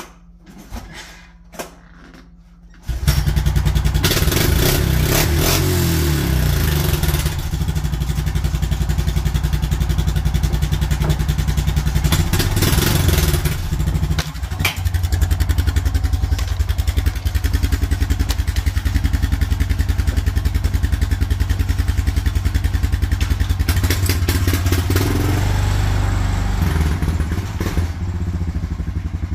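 A Honda's small engine, pull-started because its battery is dead, catches abruptly about three seconds in after a few light clicks. It then runs steadily with a fast, even beat.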